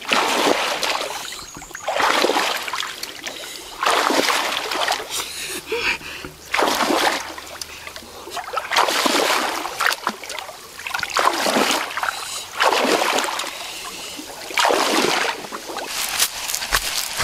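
Shallow muddy pond water splashing over and over, about every one to two seconds, as a long wooden stick is swung down into it. Near the end, bare feet crunching over dry fallen leaves.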